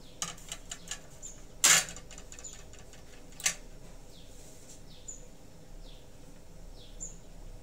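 A few sharp clicks in the first second and two louder short knocks, the louder one about one and a half seconds in, over faint high bird chirps.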